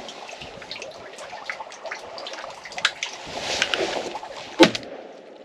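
Water lapping and trickling against the blind, with scattered light clicks and knocks. A single sharp knock stands out near the end.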